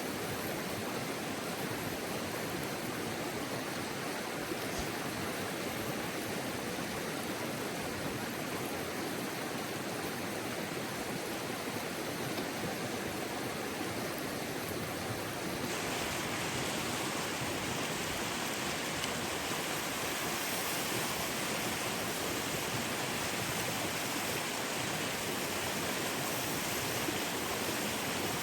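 Mountain river rushing steadily. A little over halfway through it turns brighter and slightly louder.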